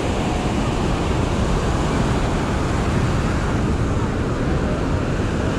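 Steady rumble of wind buffeting the microphone over the continuous wash of surf on the beach.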